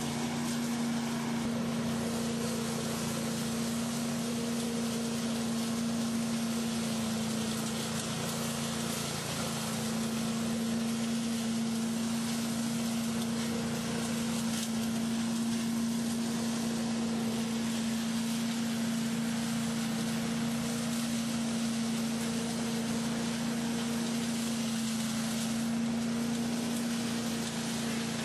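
Agrinova AS10 self-propelled leaf vacuum running at a constant speed, its engine-driven fan pulling air and leaves in through the wide suction hose: a steady hum over an even rush of air.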